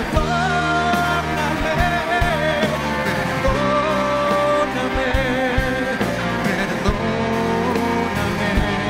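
A 1960s–70s Spanish pop song: a singer, the voice wavering with vibrato, backed by a live band with guitar.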